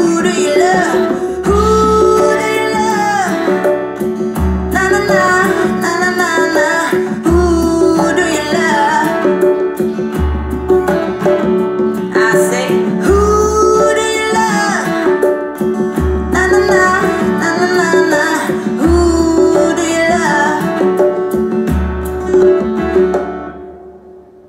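Rock song played through a Kenwood hi-fi speaker system with a powered super woofer: guitar over a deep bass note that comes back about every three seconds. The music fades out near the end.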